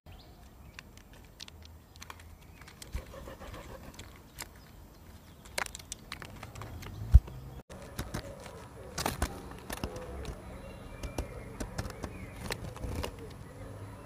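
Great tits pecking at seeds in a plastic feeder: scattered sharp taps and clicks from beaks and claws, with one louder low thump about halfway through.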